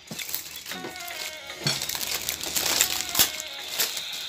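Dinner-table noise: spoons and forks clinking on plates a few times amid plastic crinkling, over faint background music.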